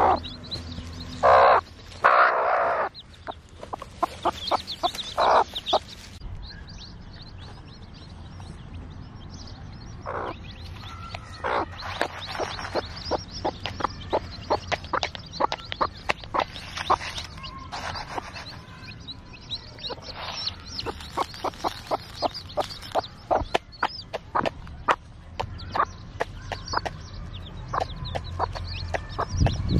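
Fayoumi hen clucking: a few loud calls in the first few seconds, then many short clucks in quick, irregular succession.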